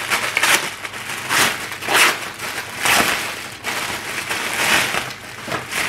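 Plastic crinkling and rustling in irregular bursts as bundles of artificial plastic fern and their wrapping are handled.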